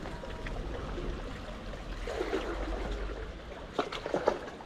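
Seawater lapping and trickling among rocks at the water's edge, with a few short clicks or knocks near the end.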